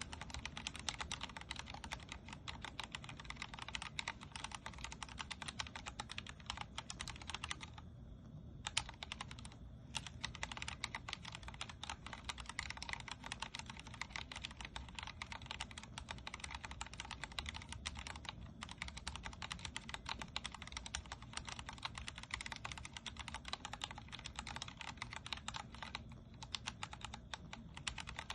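Continuous fast typing on a Vortex Core 40% mechanical keyboard with Cherry MX Speed Silver linear switches: a dense stream of key clicks, with brief pauses about eight and ten seconds in.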